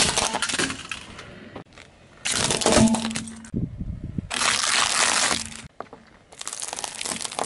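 A car tyre rolling over and crushing small objects, among them plastic items and rolls of Mentos mints, in four separate crunching, cracking bursts of about a second each.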